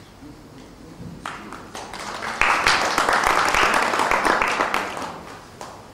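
Audience applauding. Scattered claps start about a second in, swell into steady applause and die away near the end.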